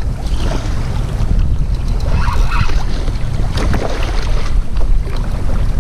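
Wind buffeting the microphone with a heavy low rumble, while choppy sea water splashes against a kayak's plastic hull a couple of times.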